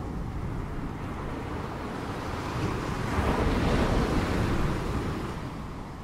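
Ocean waves washing on a shore: a steady rush of surf that swells louder about three seconds in and fades again near the end.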